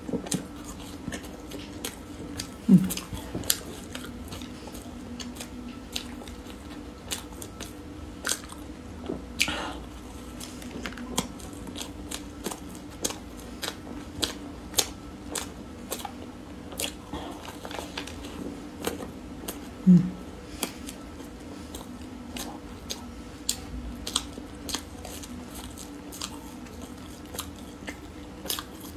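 Close-miked mukbang eating of mini cream puffs: bites and wet chewing with many small mouth clicks and lip smacks. Two short, louder low bumps stand out, about three seconds in and again about twenty seconds in.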